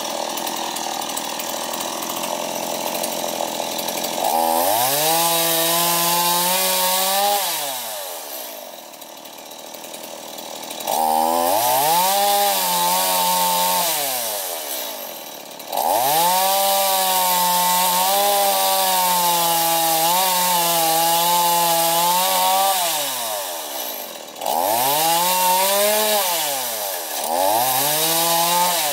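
Two-stroke chainsaw cutting into a palm trunk. Its engine revs up to full throttle in bursts of a few seconds, five times, the longest about seven seconds, and drops back toward idle between them.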